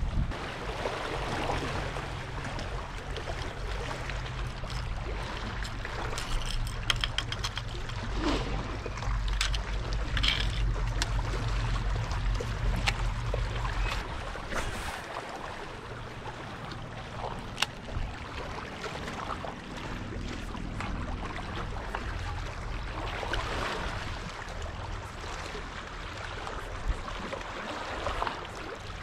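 Small waves lapping and trickling against shoreline rocks, with a low steady hum that stops about halfway through and a scattering of light clicks.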